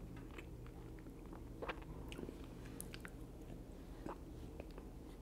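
Faint sounds of a person chewing a mouthful of fried chicken: soft, scattered mouth clicks over a low steady room hum.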